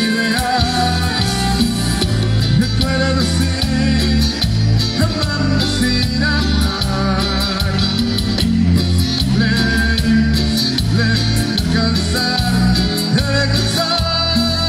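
Live band playing through a PA: bass and drums in a steady beat under guitars, congas and saxophones, with a lead singer's voice.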